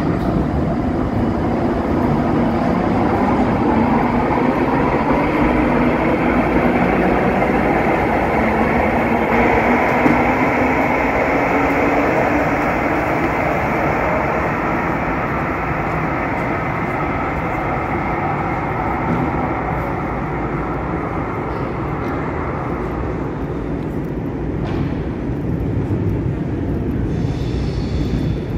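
KVB Stadtbahn light-rail train pulling out of an underground platform. Its motor note rises in pitch as it accelerates, and its rumble on the rails slowly fades away down the tunnel.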